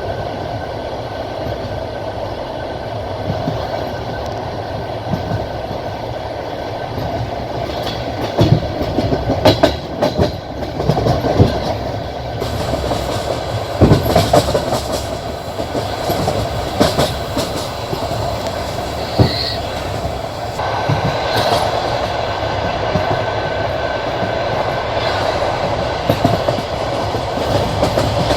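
Passenger train's wheels clattering over rail joints with a steady running rumble; a dense run of sharper knocks comes between about 8 and 15 seconds in.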